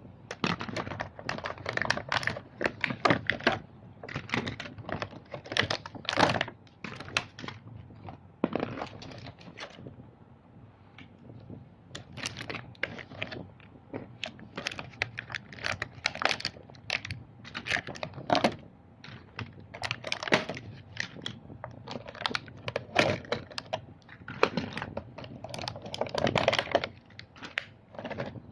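Small hard plastic toys being handled, a dense run of quick, irregular clicks and clatters, thinning out briefly about ten seconds in.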